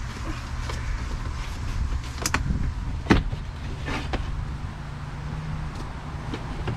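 Knocks and clatter of RV panels and wood being pulled apart by hand, with one sharp knock about three seconds in, over a steady low hum.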